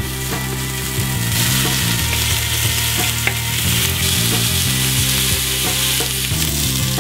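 Quartered onions and red bell pepper sizzling in hot oil in a stainless pressure cooker pot as they brown, the sizzle swelling about a second in. Background music plays underneath.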